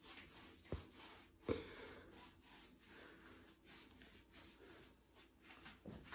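Faint rustling and handling noises, with two soft knocks about a second and a second and a half in.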